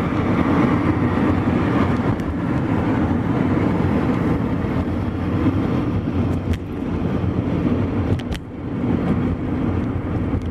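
Car driving on a road, heard from inside the cabin: steady engine and tyre rumble, with a couple of brief knocks in the second half.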